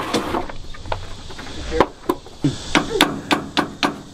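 Rapid hammer blows on a seized part of an old excavator, about three or four a second, stopping briefly early on and starting again just under two seconds in.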